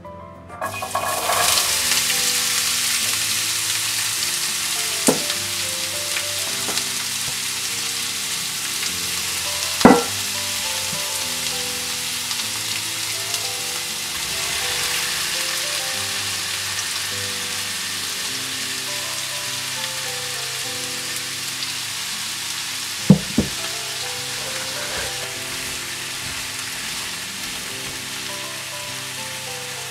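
Diced potato, carrot and onion hitting hot oil in a frying pan, sizzling from about half a second in and carrying on steadily as they are stir-fried. A few sharp knocks against the pan, one about a third of the way in and two close together later on, with soft background music underneath.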